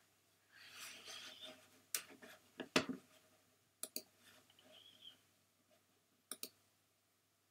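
Faint scattered clicks, a few at a time, with a soft rustling hiss about half a second in.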